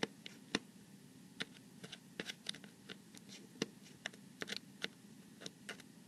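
Small Phillips screwdriver backing a tiny screw out of an iPad 4 home button bracket: faint, irregular light clicks and ticks as the driver tip works in the screw.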